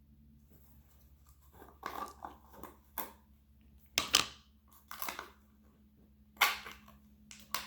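Product packaging of facial radiance pads being handled and opened by hand: several short, scattered rustling and crackling sounds, the loudest about four seconds in.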